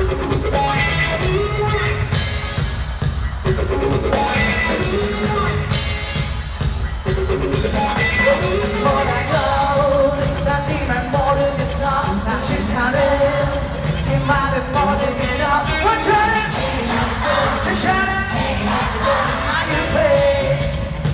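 Live pop-rock band playing, with a lead vocal sung into a microphone over electric guitar and drums.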